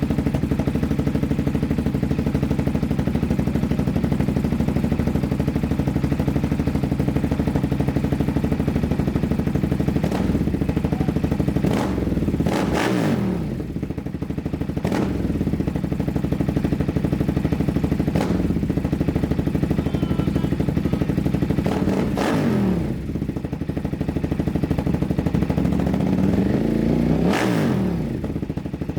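Langen Lightspeed's two-stroke twin engine running at idle and blipped up and back down several times, most of them in the second half.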